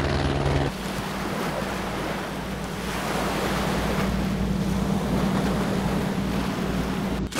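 Wind and water on open sea, with the low steady hum of a fishing boat's engine. A steady mechanical drone stops less than a second in.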